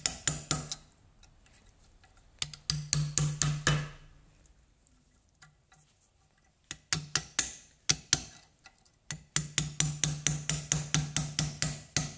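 Rapid hammer blows on metal, about five a second, in four bursts with short pauses between. Each blow rings with a low hum from the struck part. This is the work of knocking a worn rear hub bearing out of a Suzuki LT50 quad's hub.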